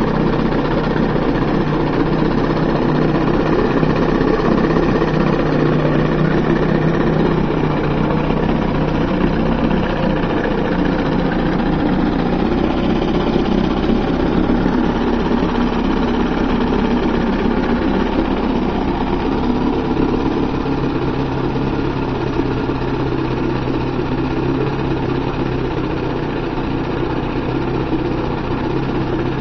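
1969 Evinrude 25 HP two-stroke outboard motor running steadily with its cowling off, its lower unit in a barrel of test water.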